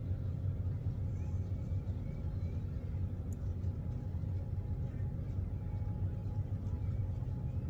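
Outdoor city ambience: a steady low rumble of distant traffic.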